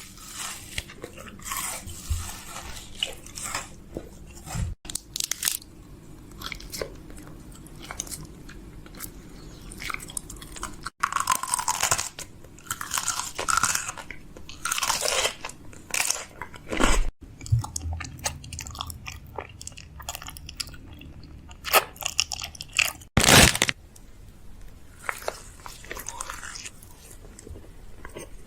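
Crunching and chewing, as of something biting into crunchy food, in irregular bursts with several abrupt cuts between short clips.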